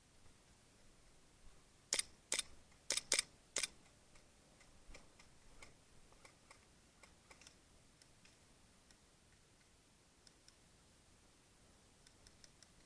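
A run of sharp clicks or snaps: five loud ones close together about two seconds in, then fainter, scattered clicks.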